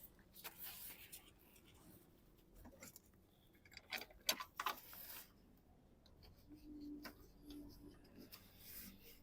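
Faint clicks, ticks and light scrapes of hands fitting car parts by hand, with a few sharper ticks about four seconds in.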